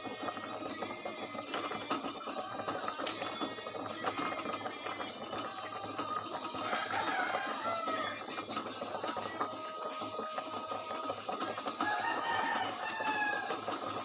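Chickens clucking and calling, in short calls that fall in pitch, with scattered clicks.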